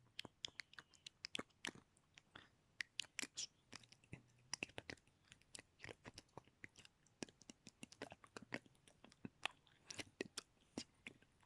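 Close-miked ASMR mouth sounds: many short, wet clicks and smacks of lips and tongue, coming irregularly several times a second.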